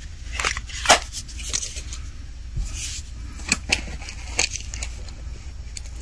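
Handling noise: scattered light clicks and taps as a flip phone is handled and moved, the sharpest about a second in, over a low steady hum.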